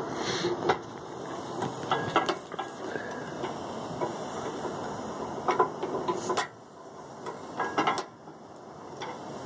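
Homemade double can crusher running: its 90-volt DC permanent-magnet motor and worm gear, powered from 36-volt golf-cart batteries, drive the rams back and forth with a steady mechanical running noise and scattered metal clanks. The running noise drops off about six and a half seconds in, with a few clanks after.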